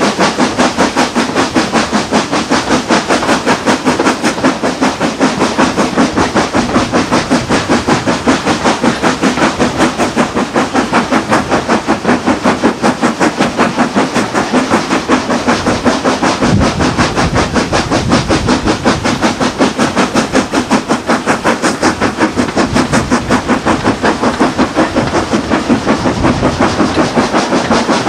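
Steam locomotive working hard, its exhaust beats thrashing in a steady, even rhythm, heard from a carriage just behind the engine.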